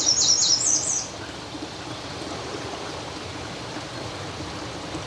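A bird chirping in a quick run of repeated high notes for about a second, then a steady outdoor hiss.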